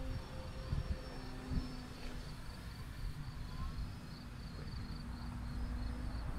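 Faint, steady drone of a radio-controlled model airplane's engine flying high overhead, its pitch sagging slightly and then rising again. Insects trill in a pulsing pattern underneath, with low wind rumble on the microphone.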